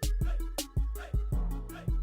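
Hip hop-style workout music with a heavy bass kick and a steady beat.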